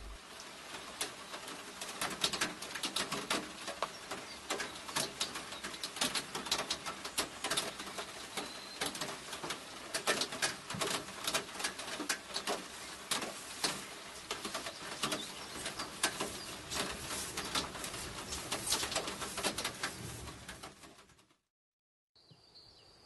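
Rain falling, with a dense run of sharp, irregular drop taps over a steady hiss; it fades out about twenty seconds in.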